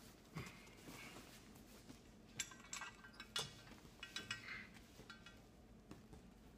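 Light metallic clinks from a cable-machine handle and its carabiner clip being picked up and pulled: a handful of short, ringing clinks between about two and four and a half seconds in.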